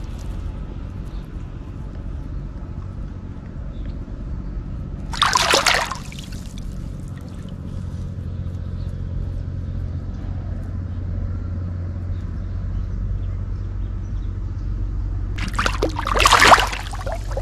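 A large catfish thrashing on a hook line in shallow water, splashing loudly near the end. A shorter splash comes about five seconds in. A steady low hum runs underneath.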